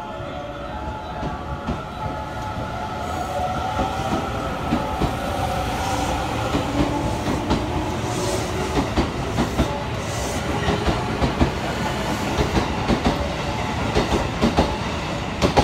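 Electric commuter train running, heard from inside the front car: a steady rumble with irregular sharp clicks of the wheels over rail joints, growing busier in the second half. A motor whine rises slowly in pitch through the middle.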